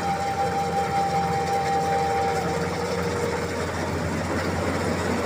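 Combine harvester engine running steadily with a low, even hum. Two long, steady higher tones carry over into the first half and fade out.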